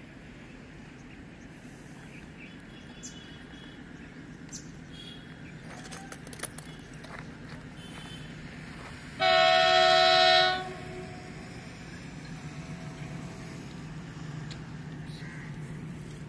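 Indian Railways locomotive horn sounding one long, loud blast of about a second and a half, some nine seconds in, as a container freight train approaches. Under it a low rumble of the oncoming train, growing louder toward the end.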